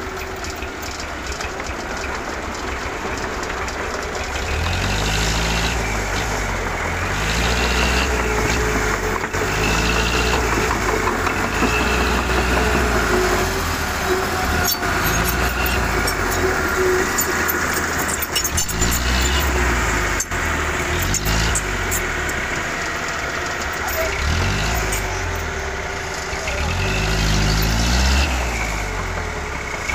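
Heavy diesel engines of a tipping dump truck and a road roller working close by; from about four seconds in the low engine note swells and drops every couple of seconds, over a steady whine.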